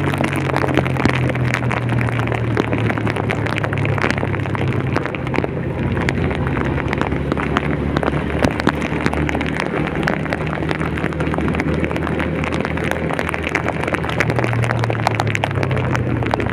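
A vehicle engine runs with a steady hum while heavy rain gives a dense, continuous patter of drops.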